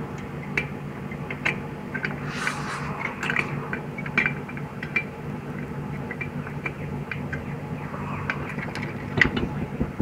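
Scattered light clicks and taps from hands pushing a PTC start relay and overload onto a refrigerator compressor's terminal pins, over a steady low hum.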